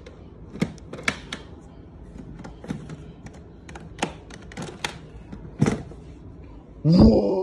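Metal latches on a hard-shell Music Man bass case being clicked open, with sharp clicks and knocks of the case being handled. A loud, brief pitched sound cuts in near the end.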